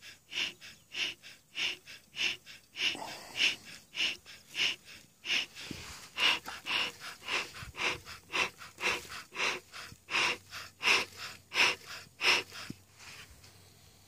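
Bee smoker's bellows being pumped in a steady rhythm, about three airy puffs a second, fanning the smouldering fuel.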